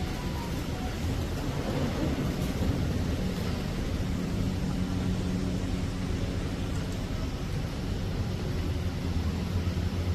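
Steady low rumble and hiss with a faint low hum.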